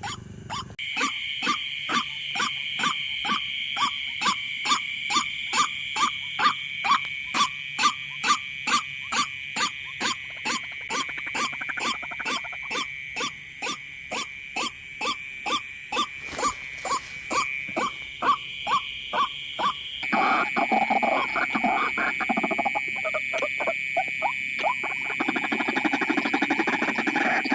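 White-breasted waterhen call: a steady series of short notes, about two a second, over a continuous high-pitched drone. About two-thirds of the way through the sound changes abruptly to a denser, lower jumble of calls.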